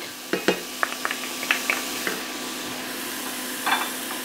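Onions frying in a pan with a faint, steady sizzle, while a wooden spoon scrapes minced garlic out of a small glass bowl into it, making light clicks and taps. There is a brief clatter near the end.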